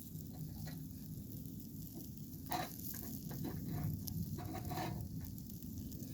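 Chicken pieces for sekuwa sizzling as they cook, with scattered crackles and two sharper pops, about two and a half and five seconds in.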